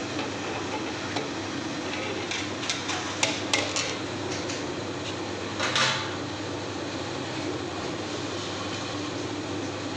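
Biomass wood pellet stove running, its blower fan and fire giving a steady rushing noise. A quick run of metal clinks comes between about two and a half and four seconds in, and a short, louder clatter just before six seconds.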